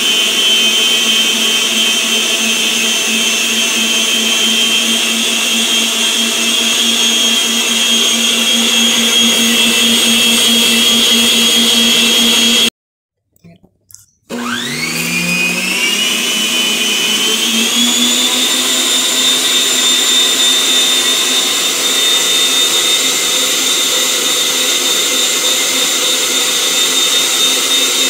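Philco stand mixer's electric motor running steadily, beating cake batter, with a steady whine. About halfway through it cuts out for a second or so, then starts again with a rising whine as it spins back up to speed.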